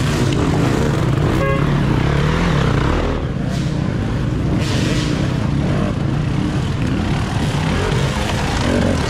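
Dirt bike engines revving up and down unevenly in off-road racing, their pitch wavering. A brief high tone sounds about one and a half seconds in.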